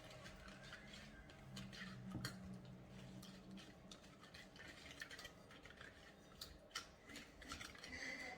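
A utensil stirring eggs and sugar in a mixing bowl: irregular light clicks and scrapes against the bowl, with a low hum underneath for the first few seconds.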